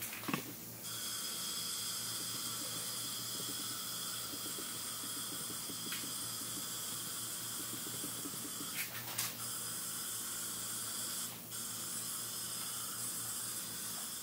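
A bottle-type powder coating gun hissing steadily as compressed air blows powder out of it, with the flow breaking briefly about half a second in and again about eleven seconds in, and a few clicks around nine seconds.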